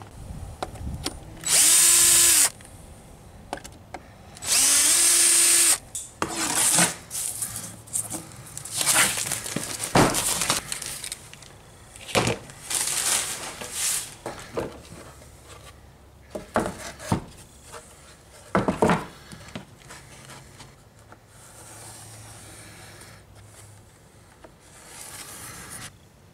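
A power drill runs in two short bursts about three seconds apart, its motor pitch climbing as each starts. These are followed by a string of irregular knocks, clatter and scraping as tools and wood are handled.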